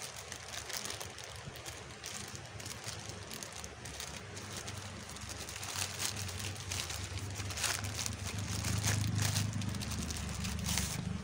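Thin plastic mailer bag rustling and crinkling as it is cut and torn open and a paper-wrapped box is pulled out, with several sharp crackles of plastic. A low rumble grows louder in the second half.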